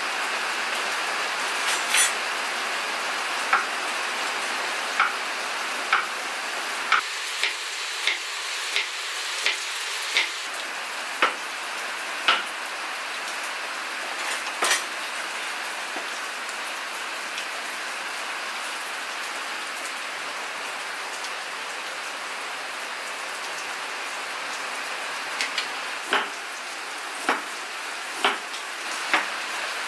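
Cleaver knocking on a wooden cutting board as bitter melon is sliced: single sharp knocks about a second apart, in two spells with a gap in the middle, over a steady hiss of rain.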